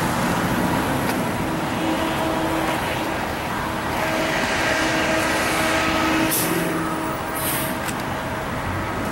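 Heavy road vehicle running close by with a steady engine hum and street noise, with two short, sharp hisses in the second half.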